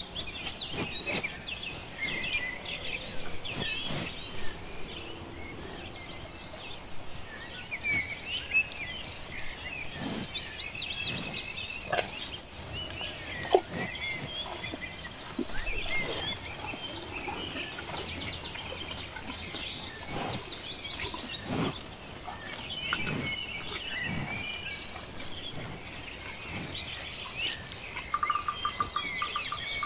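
Many small songbirds chirping and singing over one another in a busy, continuous chorus, with scattered sharp clicks. Near the end a rapid, buzzy trill joins in.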